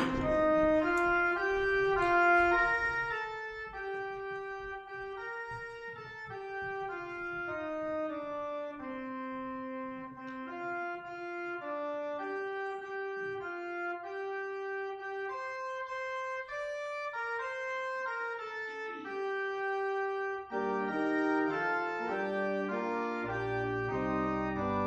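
Organ playing a hymn tune in sustained notes, the melody moving step by step over held chords. Fuller chords come in near the end, with deep bass notes joining.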